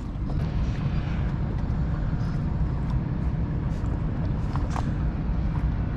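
Steady low rumble, with a few faint clicks and knocks near the middle and end.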